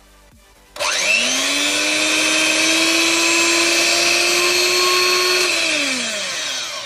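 Sinbo hand mixer's 100-watt brushed motor, now working after its repair, switched on about a second in: it spins up quickly to a steady high whine, runs for about four and a half seconds, then is switched off and winds down with falling pitch.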